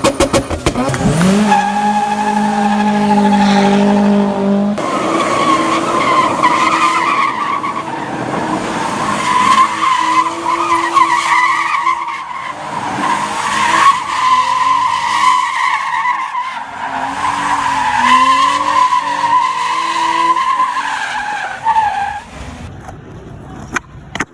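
Car tyres squealing under power, a long wavering screech over a revving engine, fading near the end.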